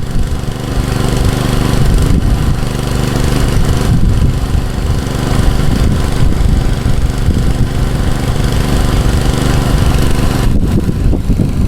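Robin 6.5 hp single-cylinder petrol engine running steadily at a constant speed, with a broad hiss over its steady hum.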